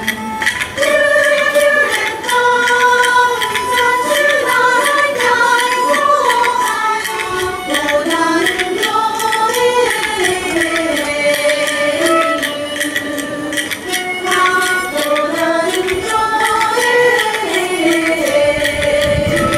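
Minshingaku (Ming-Qing Chinese music) ensemble playing: plucked yueqin moon lutes and a small drum struck with sticks, with voices singing the melody over them.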